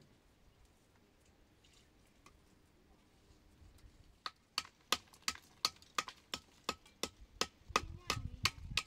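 A hand tool striking repeatedly at a steady pace, about three sharp blows a second, each with a brief ringing tone. The blows start about halfway through and keep going.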